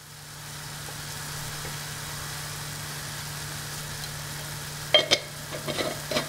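Tamarind-water broth for milagai kuzhambu simmering in an open pressure-cooker pan on a gas burner: a steady soft hiss under a low hum. A few light clicks come about five seconds in.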